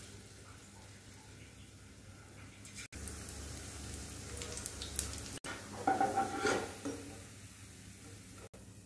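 Besan batter pakoras frying in hot oil in a kadai, a steady sizzle. Partway through, a metal spoon clatters and scrapes against the pan, and the sound breaks off abruptly a few times.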